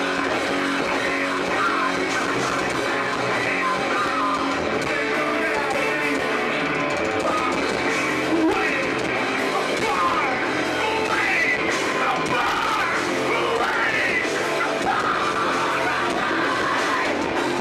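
Loud live hardcore rock band playing, with distorted electric guitars, bass and drums, and shouted vocals in the second half.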